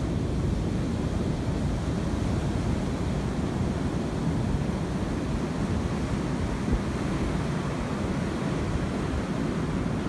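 Ocean surf breaking and washing up a sandy beach, mixed with steady wind buffeting the microphone.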